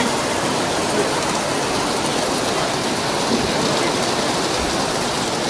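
Steady hubbub of a crowded exhibition hall: many voices and footsteps blending into a continuous din, with no single sound standing out.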